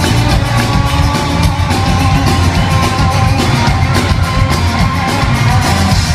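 Live rock band playing loud and steady, with bass, drums and guitar, heard as a crowd-level concert recording.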